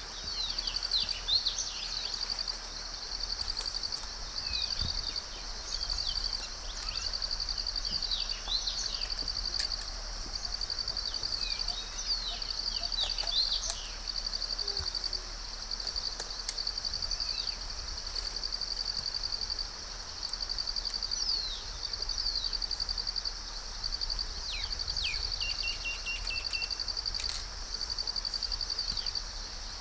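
High, even insect trill coming in repeated bursts of a second or two with short breaks, over scattered quick falling bird chirps. A low steady hum lies underneath.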